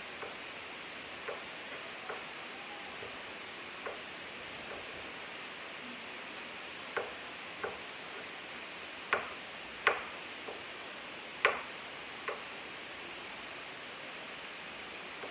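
A chef's knife chopping vegetables on a cutting board: about a dozen sharp, irregular taps, the loudest coming a little past the middle, over the steady faint sizzle of food frying in a skillet.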